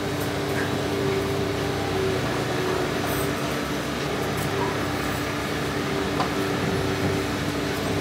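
Steady hum of running machinery, a constant drone with a few steady tones in it and some faint ticks.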